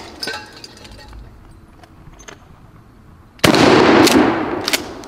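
Mossberg 590 A1 short-barreled 12-gauge pump shotgun: a few light clacks of the pump action being worked, then one loud shotgun blast about three and a half seconds in that echoes and fades over a second or so, with a second sharp crack shortly after.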